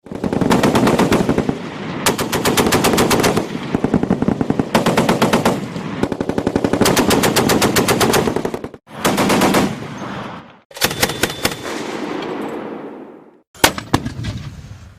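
Machine-gun fire sound effect: several bursts of about ten rapid shots a second with short breaks between them. Near the end comes a long rumble that starts suddenly and fades away, followed by a few last single shots.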